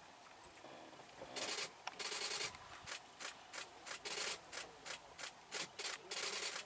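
Dry grass swishing in short, quick bursts as a lion pushes through it on foot, starting about a second and a half in and coming about three times a second toward the end.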